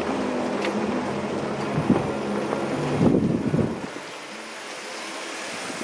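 A Jeep's engine running at low speed as it crawls over rocky trail, with bumps and knocks from the body and suspension, the heaviest about two and three seconds in. A little before four seconds the low engine drone drops away and the sound gets quieter.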